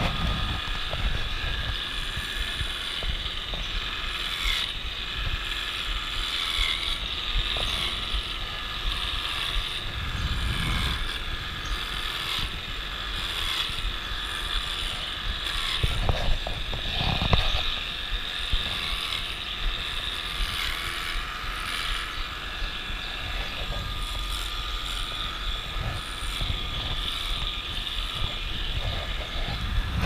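Handheld electric cattle clippers running steadily with a high motor whine whose pitch wavers slightly as they cut the hair of a cow's tail; a few dull low knocks from handling come through in the middle.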